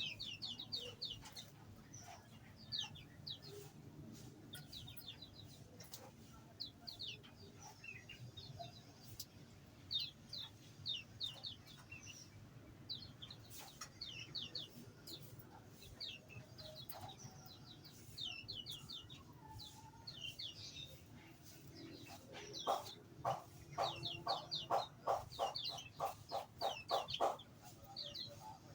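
Small aviary birds chirping with quick, high twittering calls throughout. Near the end a louder, lower call repeats evenly about three to four times a second for some five seconds.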